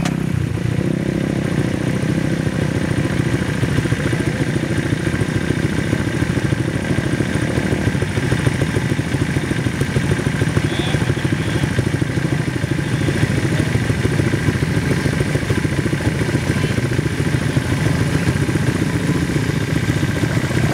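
Honda 67 motorcycle's small engine running steadily with a rapid, even pulsing.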